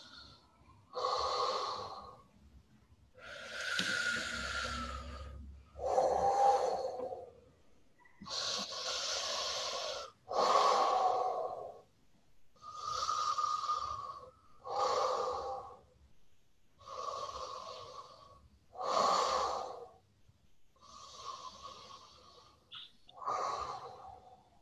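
A woman's strong, deep breaths, blown past palms pressed together in front of her nose and mouth during a powerful-breath exercise. About eleven long breaths, each one to two seconds, follow one another with short pauses.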